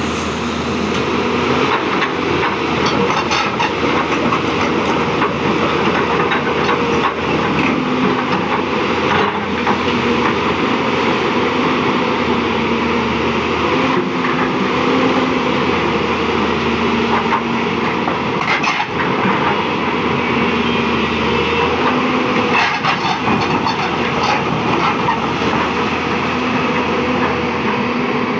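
Hyundai R220-9S crawler excavator's diesel engine running under load while the boom and bucket work, with a hydraulic tone that comes and goes as the controls are worked. A few sharp knocks from the bucket.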